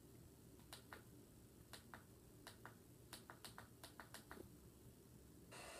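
Faint clicks of an alarm clock radio's plastic buttons being pressed, about a dozen at irregular intervals. A faint steady hiss comes in near the end.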